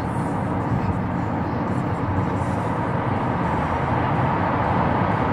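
Steady road and engine noise of a car moving at freeway speed, heard from inside the cabin, growing slightly louder near the end.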